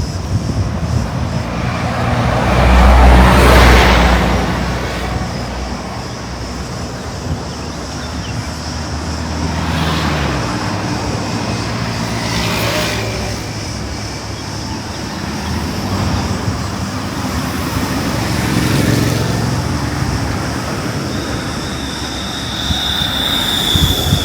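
Cars passing one after another along a road, each swelling and fading, the loudest going by about three seconds in. Near the end a cicada starts its steady high buzz.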